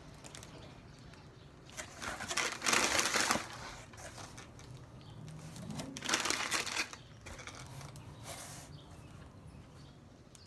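Crinkling of plastic chip bags and food wrappers being shifted around inside a cardboard box, in two main bouts with a shorter rustle later.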